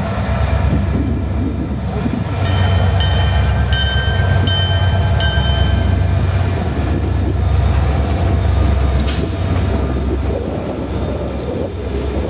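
CN diesel freight locomotives, four EMD SD40-2-type units, rumbling past with a steady low engine drone. About five short high ringing tones sound in a row in the first half. There is a single sharp crack near the end.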